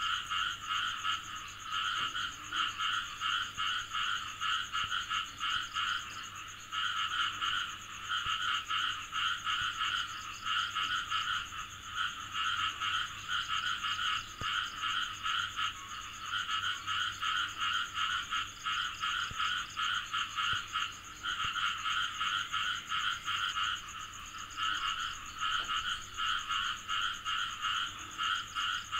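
A chorus of frogs calling in rapid trains of pulsed croaks. The calling comes in bouts of several seconds with short breaks, over a steady high-pitched drone.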